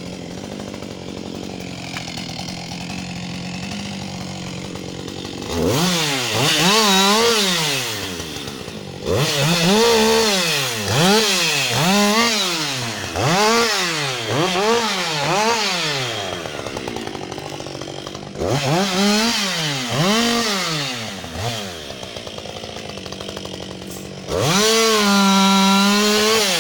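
Husqvarna 560XP two-stroke chainsaw idling steadily, then revved up and back down over and over, roughly once a second, with a short spell back at idle between runs. Near the end it is held at full throttle as it cuts into a log.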